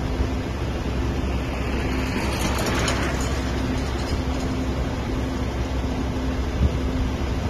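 Truck-mounted crane's diesel engine and hydraulic pump running steadily as the telescopic boom is worked, a low drone with a steady hum over it. A hiss swells and fades about two to three seconds in.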